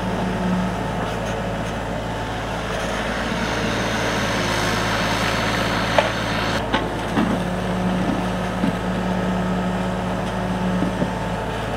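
Kubota mini excavator's diesel engine running steadily as it digs, with a few short knocks in the second half.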